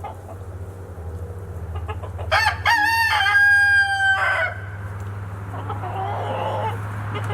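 A rooster crows once, about two seconds in, ending in a long held note, followed by softer chicken calls, over a steady low hum.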